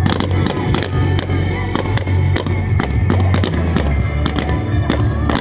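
Fireworks going off in quick succession, a dozen or so sharp bangs and cracks, over loud music with a heavy bass.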